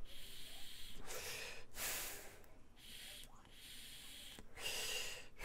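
A man drawing on an e-cigarette and blowing out the vapour: faint, breathy hisses of air through the device and mouth, in several stretches of about half a second to a second with short pauses between.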